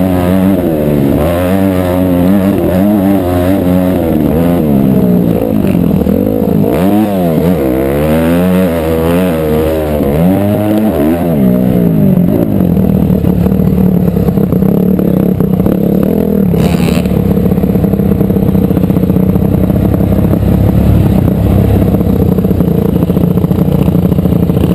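Motocross bike engine heard from a camera mounted on the bike, revving up and down with throttle and gear changes for about the first half, then running at a steady engine speed for the rest, with one brief clatter partway through.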